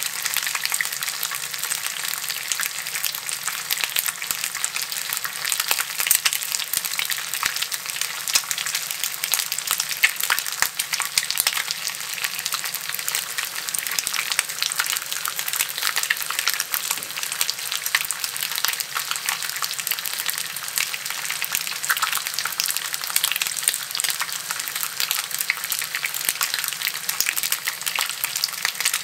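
Bacon strips frying in a cast-iron skillet: a steady sizzle with frequent small pops and crackles of spitting fat.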